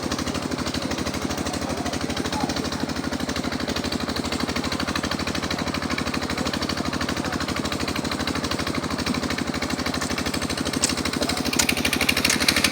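An engine running steadily at an even speed with a fast regular throb, with a few sharp clicks near the end.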